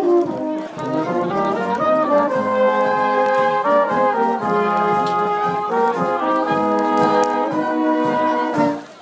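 Brass instruments playing a tune in harmony, held notes moving from one pitch to the next; the playing breaks off shortly before the end.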